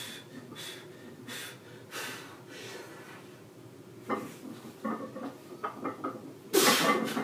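A lifter's hard, rhythmic breathing during a heavy barbell back squat set, followed by several sharp knocks and clanks and then one loud noisy burst near the end.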